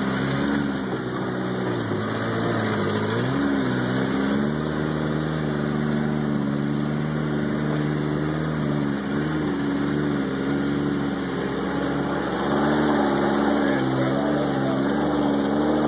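Off-road vehicle engine running under load through a mudhole, its revs dipping and rising again several times.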